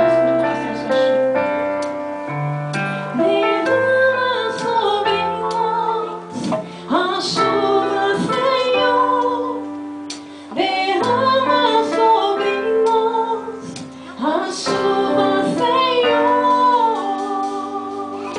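Worship song: a woman singing in phrases over sustained keyboard chords.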